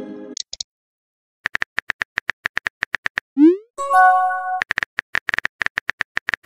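Simulated phone-keyboard typing clicks in a quick even run, about seven a second. Then a short rising swoosh and a bright multi-tone chime as a chat message pops up. Then another run of typing clicks.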